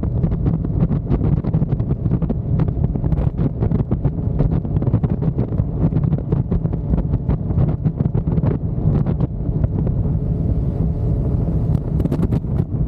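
Loud wind buffeting on the microphone of a moving motorcycle: a steady low rumble broken by constant crackling gusts.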